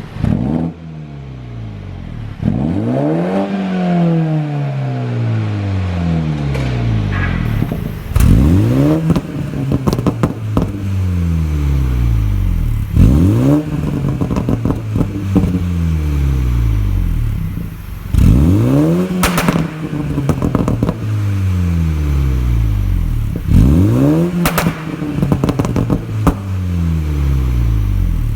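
Mini Cooper S (F56) 2.0-litre turbocharged four-cylinder being free-revved in repeated blips, about every five seconds, each rising quickly and falling back slowly. On each overrun the exhaust pops and crackles, the sign of a pop-and-bang tune.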